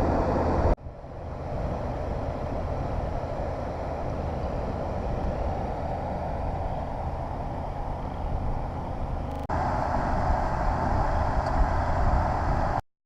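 Steady rumble and hiss of a vehicle on the move, made of three stretches that break off abruptly, about a second in and again near the end; it stops dead just before the end.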